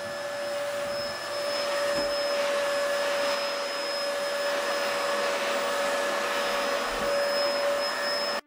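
Pan of rolled oats boiling hard on a glass-top electric stove, a steady hiss of bubbling with a steady hum running under it; it grows a little louder about a second in.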